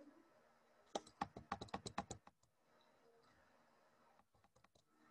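Keyboard keys clicking in a quick run of about ten taps, then a few fainter taps near the end, while the PDF page scrolls down.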